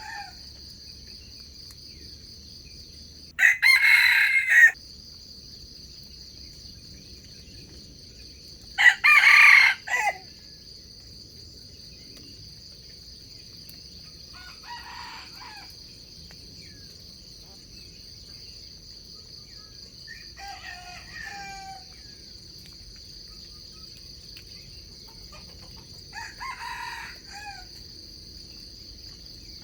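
Junglefowl roosters crowing: two loud, close crows about four and nine seconds in, then fainter, more distant calls, over a steady high-pitched insect drone.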